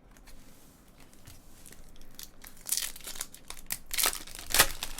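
Foil trading-card pack wrapper crinkling and tearing as a pack is opened, with rustling bursts that begin a little after halfway and peak twice near the end.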